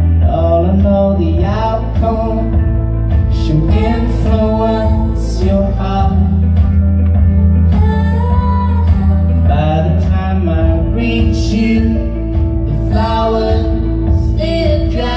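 Live band music: female vocals over guitar and keyboard, with a sustained low bass note underneath.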